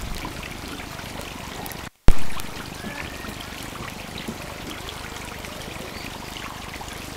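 Steady noise of running water trickling. About two seconds in, the sound cuts out for a moment and returns with a sharp, loud pop.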